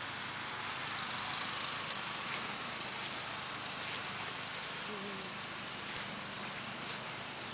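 Steady background noise, an even hiss with a faint low hum under it, and no distinct events.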